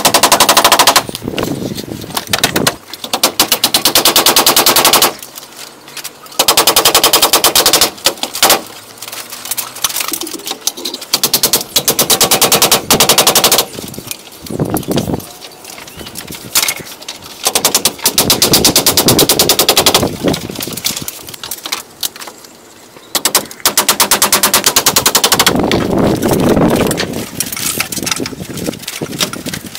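A wooden mallet pounding bamboo: runs of rapid knocks, many strikes a second, each run lasting a second or two to a few seconds, with short quieter pauses between.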